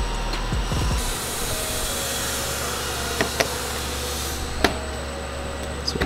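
A few small sharp clicks as fuel injectors are handled and pushed into a fuel rail, over a steady shop hum, with a rushing hiss of air for about three seconds in the middle.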